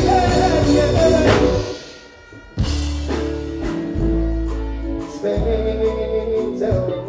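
Live stage performance: a singer's amplified voice over a backing track with heavy bass through the PA. About two seconds in the music drops out for under a second, then comes back in on a deep bass hit.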